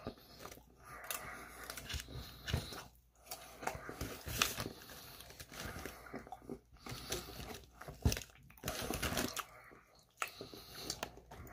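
Person biting and chewing a Burger King burger, with irregular wet mouth clicks and smacks, and the paper wrapper crinkling as it is handled.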